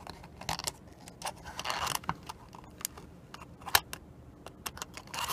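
Small clicks and taps of an alarm clock's parts being handled and worked loose during disassembly, with one sharper click a little past halfway.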